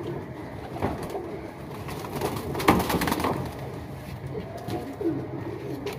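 Domestic highflyer pigeons cooing, with a short scuffle of knocking noise near the middle.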